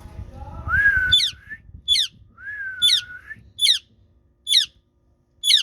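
Green ringneck parrot (rose-ringed parakeet) calling: a sharp chirp falling steeply in pitch, repeated six times a little under a second apart, with two longer, nearly level whistled notes in the first half.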